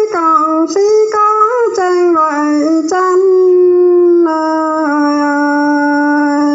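A solo voice singing Dao pả dung folk song, drawing out one long vowel. The pitch slides and steps down through wavering ornamented notes and settles on a low held tone for the last couple of seconds.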